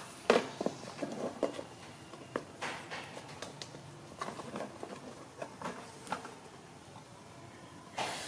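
Scattered light taps and scuffs of a baby macaque's hands and feet pawing and climbing on a hard black round top, irregular and unevenly spaced.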